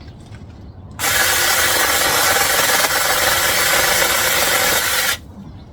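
Small battery-powered mini chainsaw running with its motor and chain going, switched on about a second in and cut off abruptly after about four seconds.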